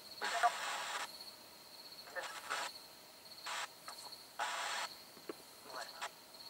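Handheld ghost-hunting radio-sweep device (spirit box) scanning: several short bursts of hissing static, the longest in the first second, with brief broken scraps of sound between them. A steady high cricket trill runs behind.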